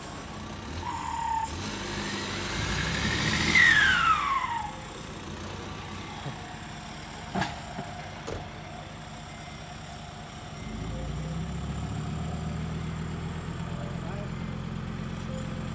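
A dump truck tipping its load of soil, with a loud rush as the earth slides off the bed and a falling whistle about four seconds in. After a short click, a Kubota L5018 tractor's diesel engine runs steadily as it blades soil, growing louder from about eleven seconds in.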